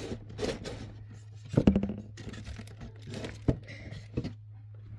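Fidget toys being rummaged through in a drawer: scattered clicks, knocks and rustling of small objects, with the loudest clatter about a second and a half in, over a steady low hum.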